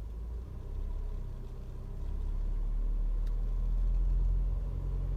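Lada Vesta SW Cross's H4M 1.6-litre four-cylinder engine running under light throttle, its revs rising a little about two seconds in. It carries a chattering tap that the owner likens to valves knocking; he is unsure of the cause.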